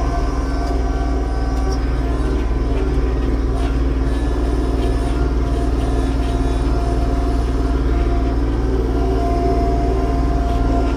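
Yanmar YT235 compact tractor's diesel engine running steadily.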